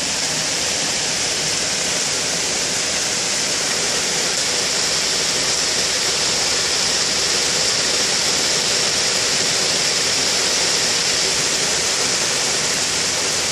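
Heavy rain falling steadily, an even hiss that holds level throughout.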